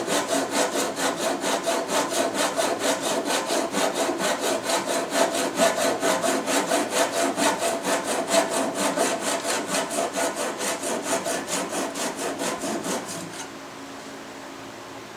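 Japanese single-edge pull saw cutting through a wedged wooden tenon set in epoxy, in rapid, even back-and-forth strokes, several a second. The sawing stops about two seconds before the end.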